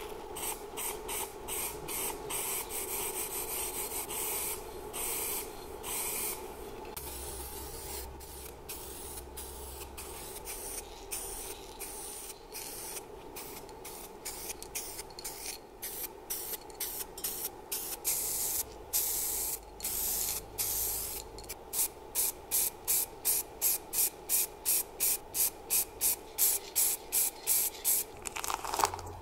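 Spray paint hissing onto alternator housing parts in repeated short bursts, irregular at first, then a quick regular run of about two bursts a second near the end.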